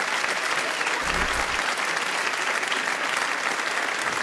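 Studio audience applauding, a steady clapping.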